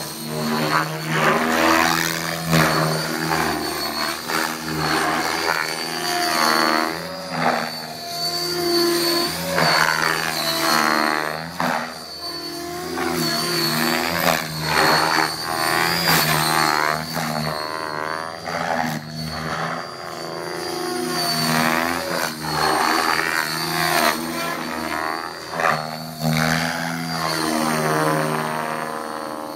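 Electric radio-controlled helicopter in flight, the pitch of its rotor and motor sweeping up and down again and again as it manoeuvres and passes close, over a steady high whine.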